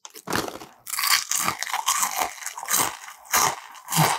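Close-up crunching and chewing of Doritos 3D Crunch three-cheese chips, hollow puffed corn snacks: a quick, uneven run of crisp crunches.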